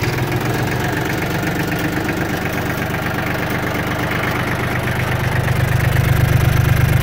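Yanmar F22D compact tractor's diesel engine idling smoothly and evenly, freshly started. It gets a little louder near the end.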